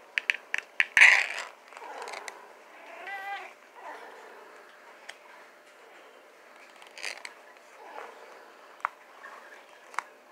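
A quick run of sharp clicks and a short loud scrape near the start, then a cat meows once, about three seconds in, with a wavering pitch. A few single clicks follow.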